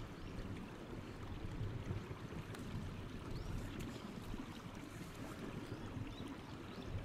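Spotted seal grunting in low, irregular rumbles as it gnaws and pushes its muzzle into packed snow.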